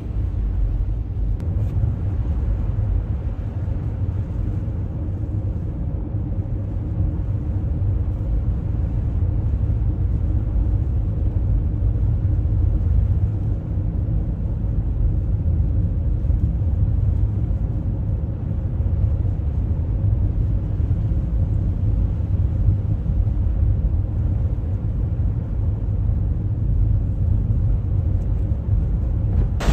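Vehicle driving on a snow-covered highway, heard from inside: a steady low rumble of tyres and engine.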